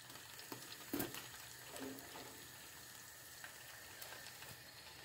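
Faint sizzling of hot fat under a roast pork joint in an air fryer basket, with a light knock about a second in.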